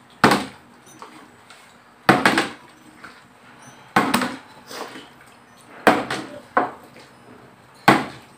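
A partly filled plastic water bottle is flipped and lands on a glass-topped table about every two seconds, five times. Each landing is a sharp knock followed by a short clatter.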